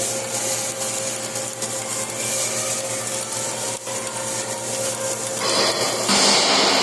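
Flux-cored arc welding: the arc gives a steady crackling hiss over a faint hum. The hiss turns brighter and louder near the end.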